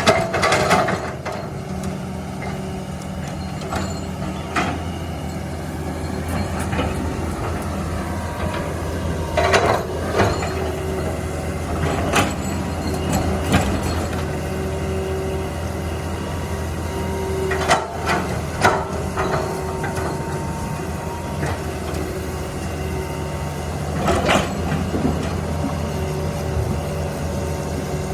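Backhoe's diesel engine running steadily, its engine speed shifting now and then, with about seven sharp metallic clanks and knocks from the machine working.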